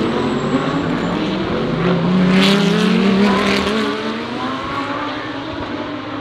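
GT3 race car engines accelerating past, their pitch climbing, loudest about two and a half seconds in and then fading away.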